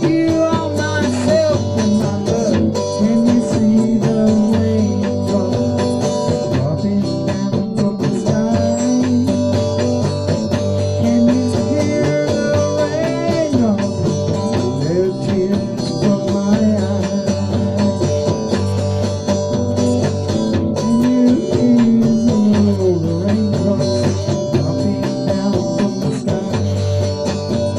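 Electric guitar playing a blues-style song through an amplifier, with a man singing over it.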